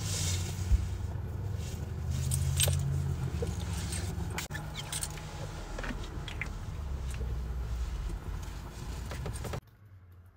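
Small clicks, light rattles and rustles of things being handled over a steady low hum, with a brief hiss near the start. The hum cuts off suddenly near the end.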